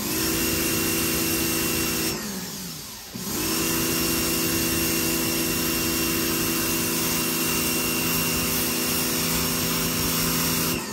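Electric pressure washer running, its motor humming steadily under the hiss of the water jet spraying a dog's coat. About two seconds in the motor winds down as the trigger is let go, then starts up again a second later and runs until it cuts off near the end.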